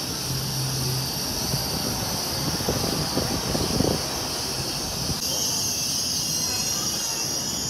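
Steady high-pitched hiss and squeal from a Lao–China Railway electric train at the platform, growing louder about five seconds in.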